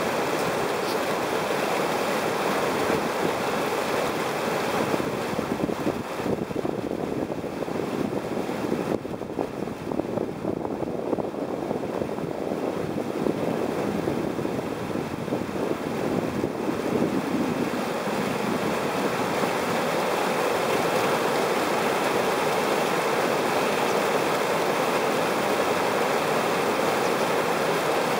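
Whitewater pouring over a weir: a steady, full rush of falling and churning water.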